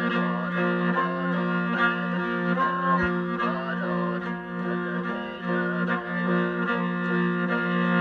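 A morin khuur (Mongolian horsehead fiddle) bowed over a steady low drone, with a plucked long-necked lute playing along: Mongolian folk music.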